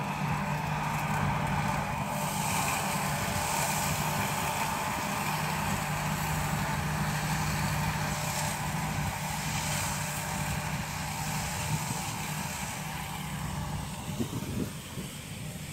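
Engine of a homemade tractor running steadily while it works the field spreading fertilizer, a constant low hum that fades somewhat near the end.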